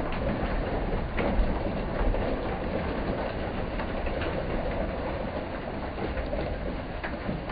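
A load of boiled crawfish, corn and potatoes tumbling out of a perforated steel boiling basket and sliding across a stainless steel tray: a steady rattling clatter with a few sharper clicks.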